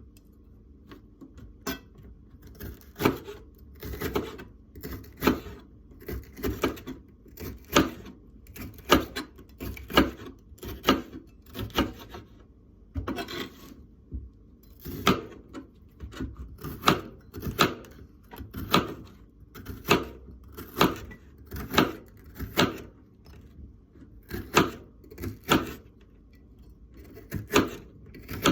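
Kitchen knife slicing bitter melon into thin strips on a cutting board: a knock of the blade meeting the board about once or twice a second, a little uneven.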